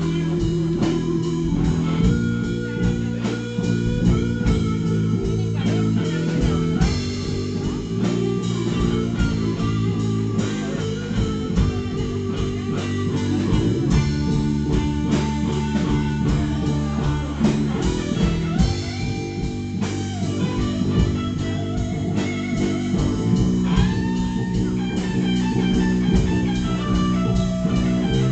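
Instrumental music led by guitar, with bass and a steady beat.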